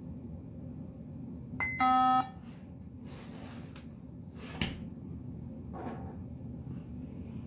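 A single loud electronic beep about a second and a half in, lasting about half a second, a buzzy tone with many overtones. Afterwards come rustling and a sharp knock as the opened laptop is handled, over a steady low hum.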